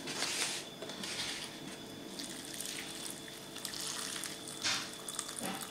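Boiling water poured in a steady stream into an instant-noodle cup, filling it over the dry noodles, with a few louder splashing swells.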